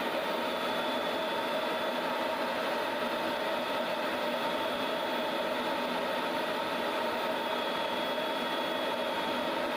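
Steady jet engine and rushing airflow noise of an F-16 in level flight, heard from inside the cockpit, with a constant hum and a thin high whine that fades in and out.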